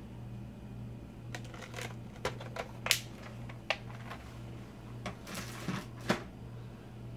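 Clicks and taps of a clear plastic Staedtler fineliner pen case and its pens being handled, with a short scratchy rustle about two thirds of the way in, over a steady low hum.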